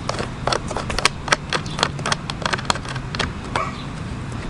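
Irregular light clicks and taps of hard plastic parts being handled during SUP board assembly, over a steady low background rumble.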